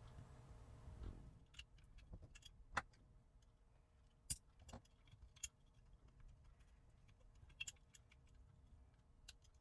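Faint, scattered small clicks and taps of metal tweezers working the connectors of two small flex cables on a circuit board, one sharper click about three seconds in, against near silence.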